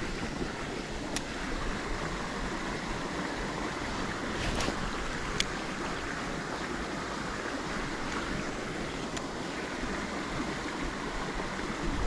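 Small stream rushing steadily over a low waterfall and riffles, a constant even rush of water. Two faint sharp clicks sound over it, one about a second in and one about five seconds in.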